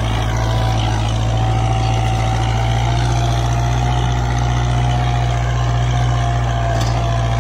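Kubota MU4501 tractor's four-cylinder diesel engine running steadily under load as it pulls a disc harrow set at its full angle through the soil.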